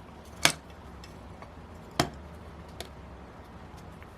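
Two sharp clicks of hard small objects handled on a workbench, about a second and a half apart, then a faint tick.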